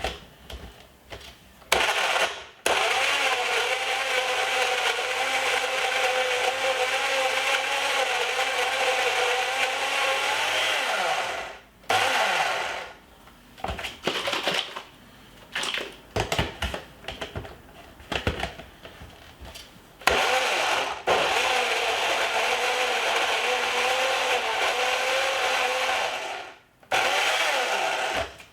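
Countertop blender crushing frozen fruit and ice for a smoothie: a short pulse, then a steady run of about ten seconds and a second run of about seven. Between the two runs come irregular knocks and clatter as the thick, icy mix is shaken down in the jar.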